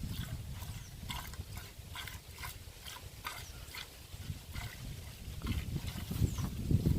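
A cow being milked by hand: milk squirts into a pail in a steady rhythm of about two strokes a second.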